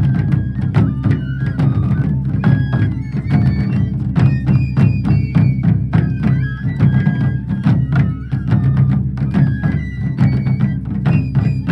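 Taiko drums played by an ensemble in a fast, continuous rhythm, with short ringing higher-pitched strikes over the deep drum beats.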